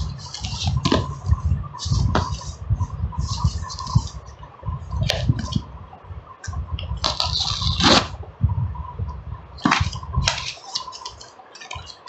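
Camera packaging being opened and handled by hand: irregular rustling and scraping of cardboard and plastic, with sharp clicks and knocks.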